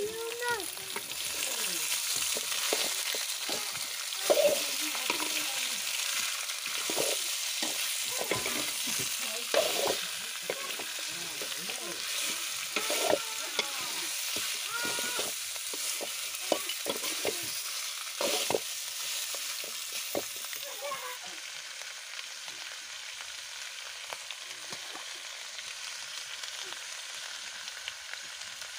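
Chicken pieces sizzling as they fry in oil in a blackened kadhai, with a spatula scraping and turning them against the pan. The stirring knocks stop about two-thirds of the way in, and the sizzling carries on alone, a little quieter.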